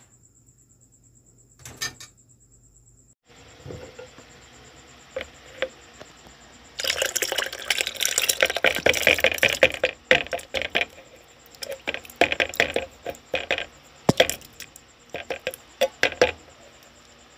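Canned liquid poured into a plastic bowl of cooked tapioca pearls, splashing loudly for about three seconds. After that, fruit cocktail is tipped in from a can with sloshes and sharp clinks of the can and ladle against the bowl.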